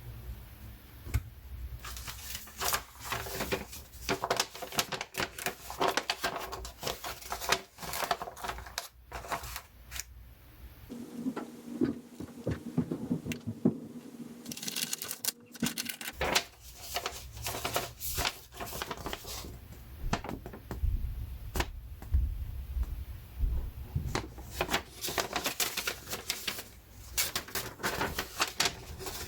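Rapid, irregular clicking and tapping of small hard objects, with a steady low hum for a few seconds in the middle.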